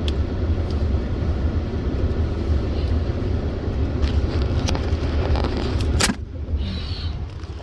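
Low, steady rumble of a car heard from inside, as it is directed into a parking spot. A sharp click comes about six seconds in, after which the noise drops.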